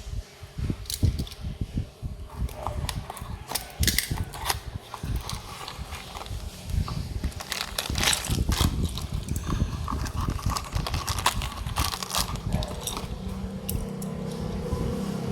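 Irregular clicks, taps and rattles of small toy cars and their packaging being handled. A steady low hum comes in near the end.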